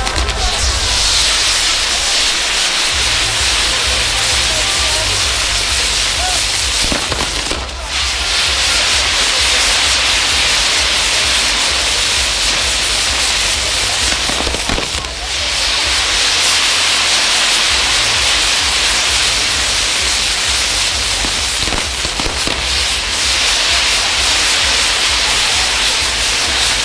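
Ground fireworks burning, a loud continuous hiss with dense crackling that dips briefly about 8 and 15 seconds in before building again.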